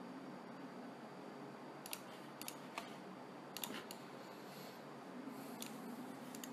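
A handful of short, scattered computer mouse clicks over faint steady microphone hiss.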